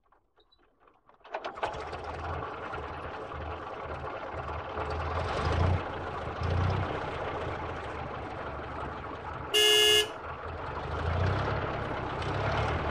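Small battery-powered DC motor of a homemade matchbox toy truck running as it drives, its small wheels rolling on concrete; the motor starts about a second in. About three-quarters of the way through, a short horn toot is the loudest sound.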